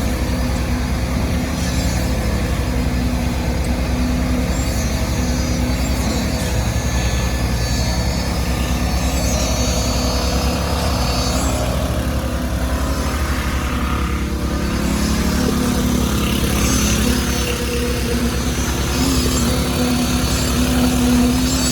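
Concrete truck's engine running steadily at a constant speed.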